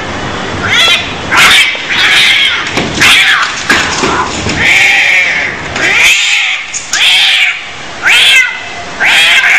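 Cats caterwauling as in a fight: a string of loud yowls with gliding pitch, roughly one a second.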